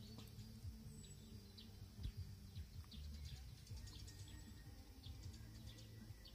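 Faint outdoor ambience: small birds chirping now and then over a low, steady rumble.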